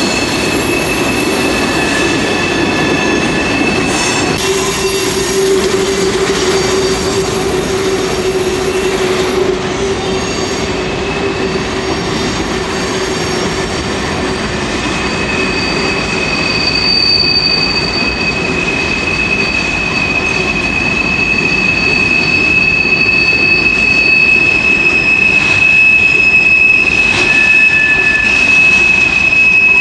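Freight cars (tank cars and covered hoppers) rolling past on a tight curve. Their steel wheels squeal against the rail over the rolling noise of the train. A lower squeal in the first part gives way to a higher, steady squeal that grows louder toward the end.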